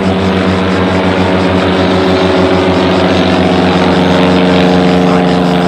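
Small propeller plane's piston engine droning as it flies low overhead, growing a little louder in the second half.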